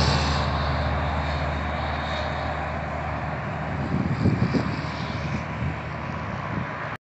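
Highway traffic: a truck's engine and tyre noise fading as it drives away, leaving a steady drone of road traffic. A few brief low rumbles come about four to five seconds in, and the sound cuts off suddenly just before the end.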